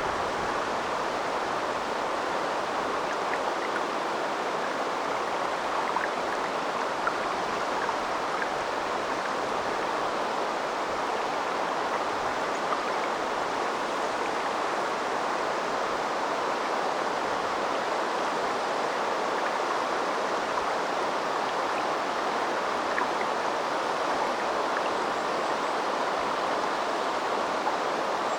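River water flowing, a steady even rush of running water.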